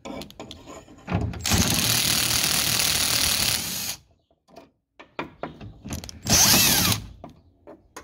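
Cordless drill-driver with a socket running in two runs on the door-handle retaining nuts: one of about three seconds, then a shorter one of under a second near the end, with small clicks of the socket and tool on the nuts in between.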